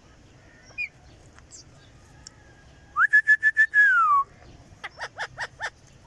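Rose-ringed parakeet whistling. It gives one held whistle, pulsing at first and then gliding down, and a moment later five quick downward-sweeping chirps.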